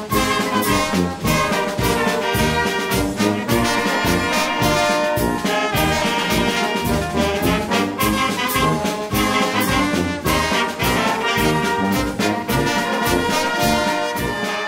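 Brass band music, trumpets and trombones playing over a steady drum beat.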